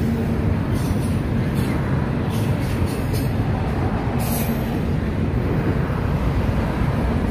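Norfolk Southern freight train of autorack cars rolling past: a steady rumble of wheels on rail, with a few short high-pitched squeaks from the wheels.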